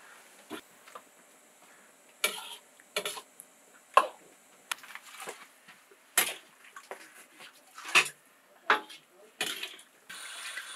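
Dishes and cutlery clinking now and then, about eight sharp clinks spread unevenly, with a steady rushing noise starting near the end.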